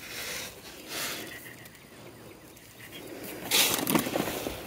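Barley seed scattered from a plastic scoop onto soil, making a few short rustling hisses; the loudest comes near the end.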